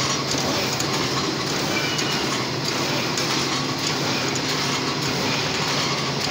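Plastic bag bottom-cutting machine running: a steady mechanical clatter over a low hum.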